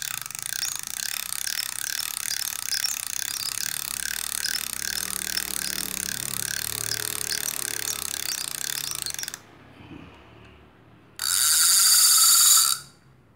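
Antique spinning fishing reel being worked, its mechanism giving a steady, rhythmic ratcheting click for about nine seconds. After a short lull, a louder, higher burst of the same kind of mechanical sound lasts about a second and a half.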